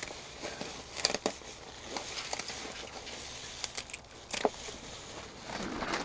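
Water spinach being harvested by hand: a few sharp snips as the stems are cut, amid rustling of the leaves.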